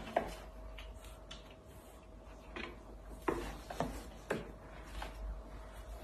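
Scuffling and a few short knocks and clicks, bunched about half a second apart in the middle, as a white cockatoo and a cat tussle on a carpeted cat-tree house; a faint steady hum runs underneath.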